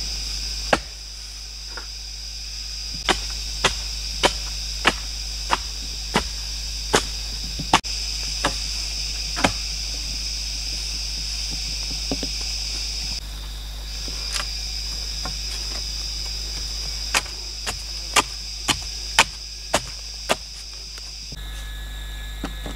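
Sharp knocks on wood in a regular series, about one and a half to two a second, in two runs separated by a pause. They sit over a steady high-pitched drone of forest insects that breaks off briefly partway through.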